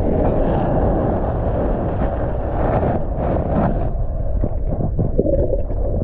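Wind buffeting the microphone: a steady, loud low rumble with a few faint knocks.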